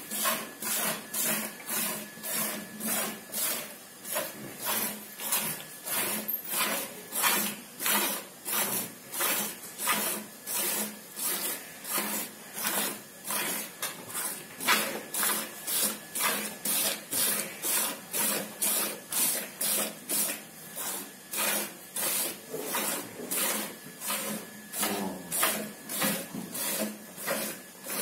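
Jets of milk squirting into a plastic bucket already part-filled with milk as a cow is milked by hand, in an even rhythm of about two squirts a second.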